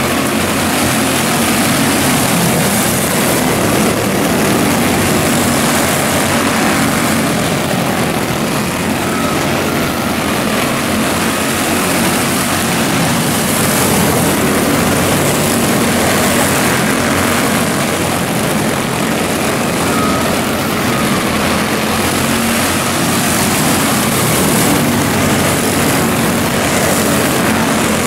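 A pack of 160 Light quarter midgets racing, their small single-cylinder Honda 160 four-stroke engines making a steady, overlapping drone at full throttle around the dirt oval.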